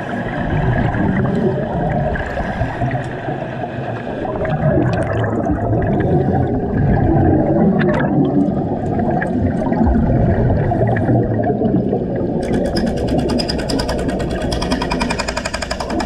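Underwater bubbling and churning water from a diver's exhaust bubbles. About three-quarters of the way through, a rapid, even mechanical rattle starts up: the underwater jackhammer hammering.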